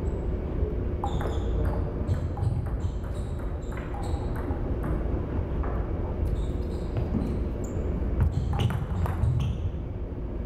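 Celluloid table tennis ball clicking off paddles and the table during a rally, then bouncing as the players retrieve it and set up the next serve: short sharp pings in scattered bunches over a steady low hum.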